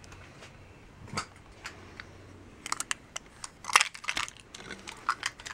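Scattered light clicks and scratches of a craft knife cutting masking tape around the badge on a sparkle-wrapped drum shell, a few sharper ticks about four seconds in.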